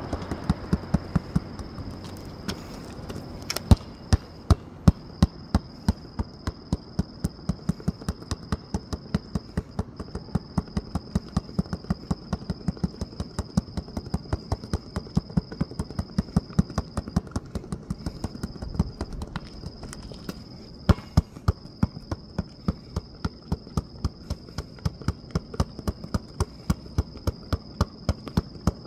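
A basketball dribbled fast and low on asphalt, in a steady rhythm of about four bounces a second.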